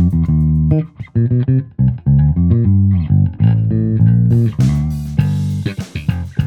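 Electric bass guitar played through an Ampeg Rocket Bass RB-115 combo amp with a 15-inch speaker: a solo bass line of plucked notes, clean and full in the low end. In the last couple of seconds the notes come quicker and with a sharper attack.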